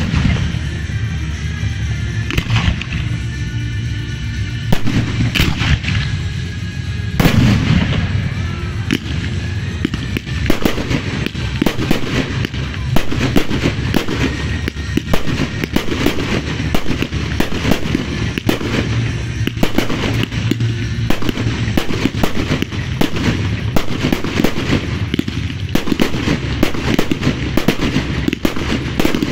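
Fireworks display: aerial shells bursting, with a few separate bangs at first. From about ten seconds in they turn into a dense, near-continuous run of sharp bangs and crackling.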